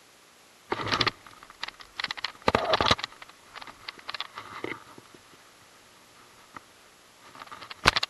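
Close handling noise of a baitcasting rod and reel during a cast and retrieve: bursts of scraping and rustling about a second in and around three seconds, scattered clicks, then a sharp click just before the end.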